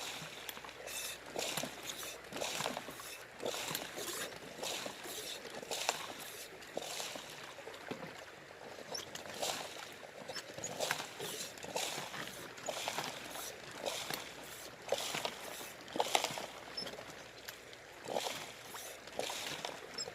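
Water sloshing and splashing in short, irregular bursts, about one a second, in a shallow river.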